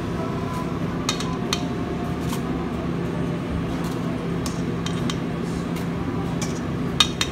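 Kitchen clatter: dishes and metal utensils clinking in short, scattered knocks, the loudest near the end, over a steady hum of kitchen equipment.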